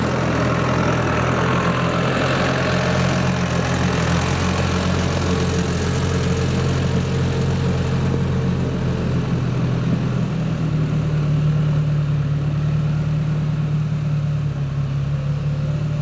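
Four-wheel-drive off-roader's engine running steadily as the vehicle drives, a low hum whose note shifts about ten seconds in.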